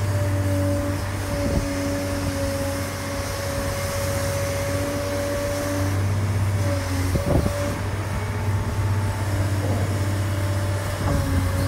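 Caterpillar 385C L ME excavator's diesel engine running under hydraulic load as the boom lifts and the bucket curls, with a steady whine over a deep hum. A single knock about seven seconds in.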